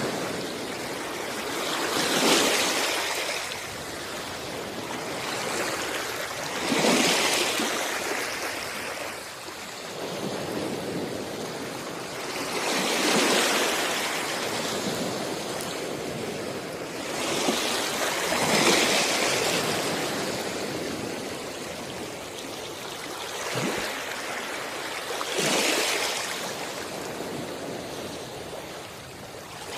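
Sea waves washing onto a shore. Each wave swells up and dies away, about every five or six seconds.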